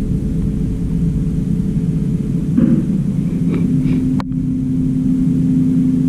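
A steady, loud, low machine hum from a running motor or engine, with a sharp click about four seconds in.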